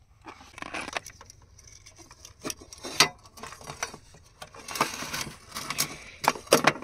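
Irregular clicks, taps and rustling from small plastic and metal electrical parts and wires being handled. It grows busier after about four seconds.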